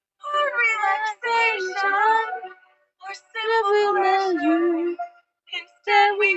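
A young woman singing solo and unaccompanied, in three held, sliding phrases with short silent breaths between them.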